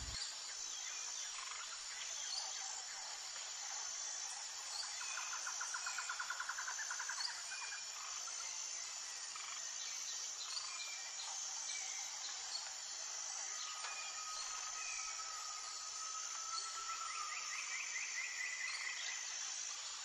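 Outdoor ambience of insects: a steady, high-pitched chirring. A rapid pulsing trill comes in about five to seven seconds in and again near the end, and a single drawn-out whistled note sounds around fourteen seconds.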